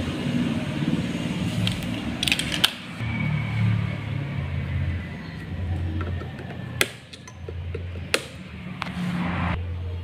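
Flush cutters snipping component leads on a circuit board: two sharp clicks a little over a second apart, over a steady low rumble.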